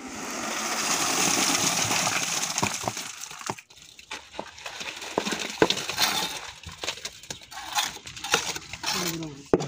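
Wet concrete pours from a bucket into a column's rebar cage and footing hole, a rush of sliding mix lasting about three seconds. Then come scattered knocks, clinks and scrapes as the concrete is worked into the cage with a trowel.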